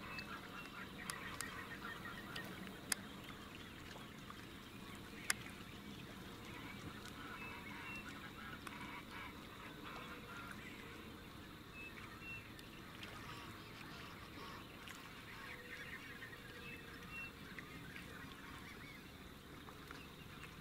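Birds calling around a shallow swamp: a steady chatter of many birds with honking calls mixed in, and a few sharp clicks, the loudest about three and five seconds in.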